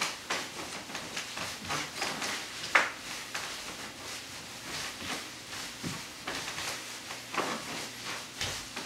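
Irregular footsteps, scuffs and shuffles of a person dancing on a floor, with one sharper knock about three seconds in.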